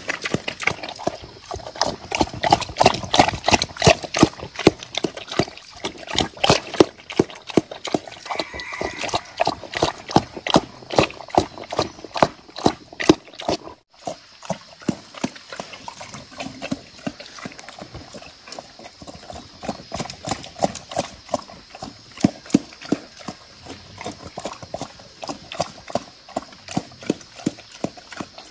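Wild boar eating wet feed from a metal bowl: fast, continuous chomping and slurping, with a brief break about halfway through.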